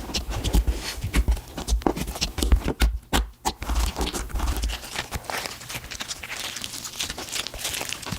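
Slime being squeezed and kneaded by hand, making quick sticky clicks and wet pops. Dull low thumps run through the first five seconds or so, then the clicking turns into a denser crackle.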